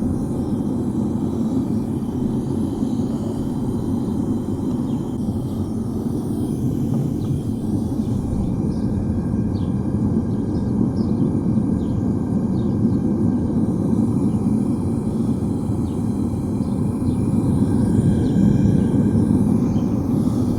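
Single-burner propane foundry furnace running steadily, a low, even rush of burning gas while it heats scrap copper toward melting. Faint light ticks come through in the middle.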